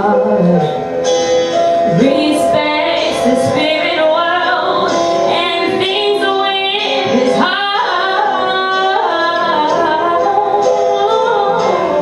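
Woman singing a live R&B ballad into a handheld microphone, her voice gliding up and down through long runs.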